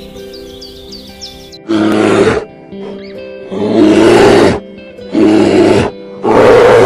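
A large animal roaring four times, each roar loud, rough and under a second long, over background music with sustained tones.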